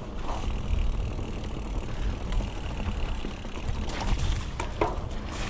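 Mountain bike riding down a dirt trail: a steady low rumble of riding noise, with a few sharp clicks and knocks from the bike about four seconds in.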